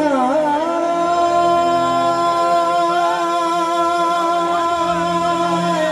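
A male singer holding one long sung note of a Punjabi qasida over a microphone and loudspeakers, with a short wavering ornament about halfway through, over a steady harmonium drone.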